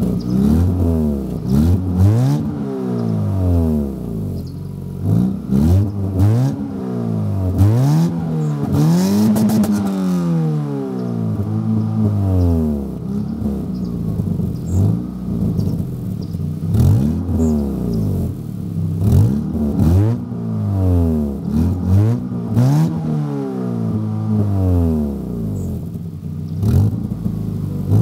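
Ford Sierra 2.0 DOHC four-cylinder engine being revved over and over through a Remus aftermarket exhaust while the car is parked. Each rev rises and falls back, about one every one to two seconds, with a few longer, higher revs.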